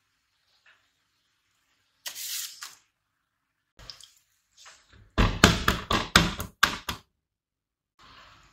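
Kitchen handling sounds: a short hiss about two seconds in, a few light clicks, then a quick run of about six sharp knocks.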